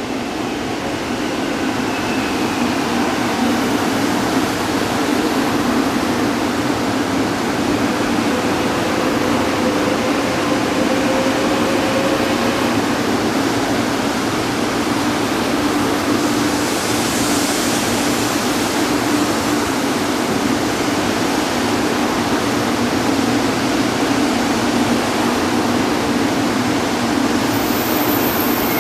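Shinkansen train at the station: a steady rushing noise with a low hum, swelling over the first few seconds and then holding level.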